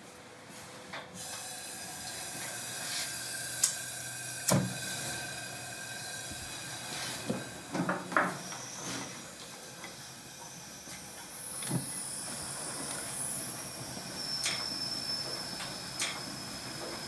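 Gas burners of a pottery kiln being lit with a flame lance: a steady hiss of burning gas builds up in the first couple of seconds, with scattered sharp metal clicks and knocks.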